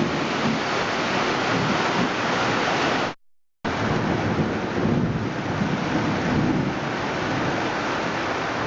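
Heavy thunderstorm downpour, rain pouring down with wind buffeting the microphone, and low rumbling of thunder a little past the middle. The sound cuts out completely for about half a second a little over three seconds in.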